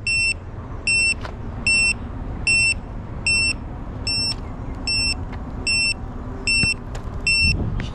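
An electronic buzzer beeping steadily: short, high, single-pitched beeps about one every 0.8 seconds, over a low steady hum.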